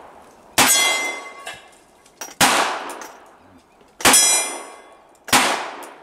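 Four gunshots fired at a steady pace, about one every one and a half seconds. Two of them hit steel gong targets, each hit a clang that rings on after the shot.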